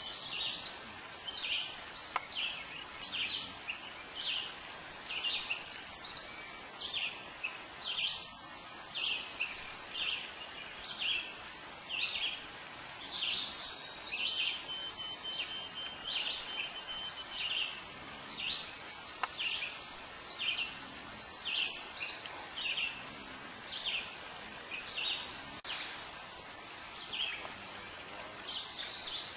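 Songbirds singing: a quick burst of high, sweeping notes comes back every six to eight seconds over a steady string of short chirps about once a second, with a held whistled note now and then.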